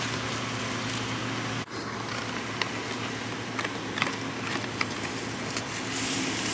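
Steady hum of a van's cabin, with scattered light clicks and crinkles as a cardboard gift box is opened and a bubble-wrapped mug is pulled out; a louder rustle of wrapping near the end.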